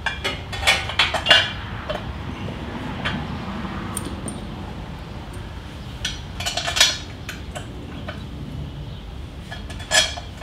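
Small metal clinks and taps as a chrome transmission side cover and its screws are fitted back onto a Harley-Davidson touring bike by hand: a cluster of clinks at the start, another about six and a half seconds in, and one more near the end.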